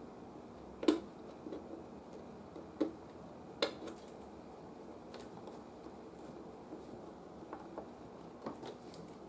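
A handful of separate light clicks and taps, the sharpest about a second in, from small parts and tools being handled during bench work on an old radio.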